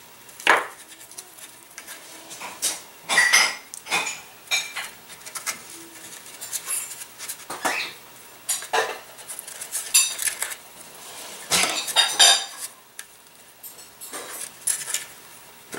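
Irregular clicks, clinks and light knocks of small metal parts and hand tools being handled against a wooden model glider fuselage on a workbench.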